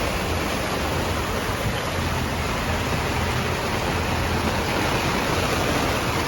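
Heavy rain falling on a sailboat and the sea around it, a dense, even hiss with a low hum underneath.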